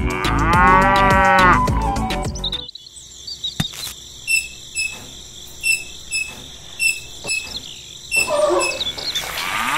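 A cow moos, one long call over background music; the music then stops, leaving a quiet stretch with faint short high chirps about once a second, and another moo begins near the end.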